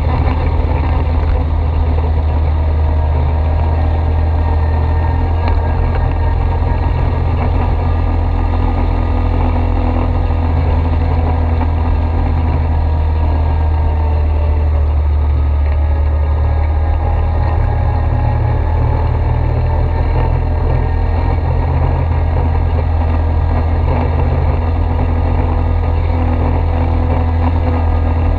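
ATV engine running steadily, a loud low drone whose pitch drifts slightly.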